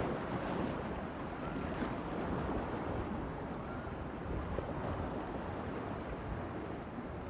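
Steady rushing of wind and ocean water, with a low rumble and no distinct wave crashes.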